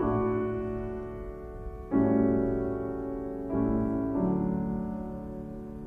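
Slow instrumental music of sustained piano chords: a new chord is struck at the start, about two seconds in, and twice more a little later, each left to ring and fade.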